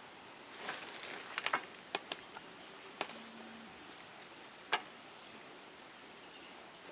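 Quiet rustling with a handful of sharp clicks or snaps spread over several seconds, the last of them nearly five seconds in.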